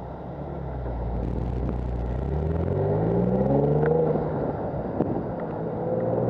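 Motorcycle engine pulling away from a stop: a low idle rumble, then rising in pitch under acceleration, a gear change about four seconds in, and rising again near the end.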